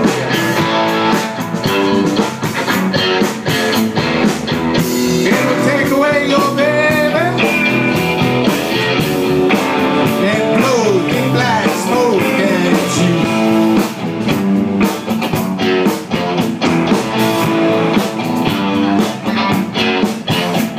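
A blues band playing an instrumental break, with a lead guitar bending notes over the rhythm section.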